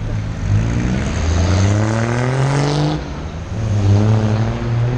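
Vehicle engine accelerating hard: its pitch climbs for about two seconds, drops at a gear change, then climbs again.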